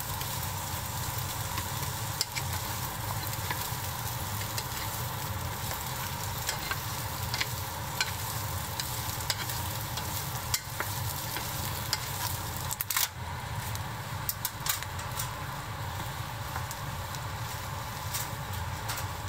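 Chopped onions, potatoes and carrots sizzling as they fry in oil in a thick pot, stirred with a wooden spatula that gives scattered light scrapes and taps.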